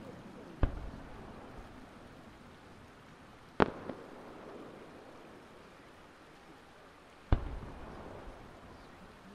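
Aerial firework shells going off: three sharp bangs about three to four seconds apart, each trailing off in a short echo.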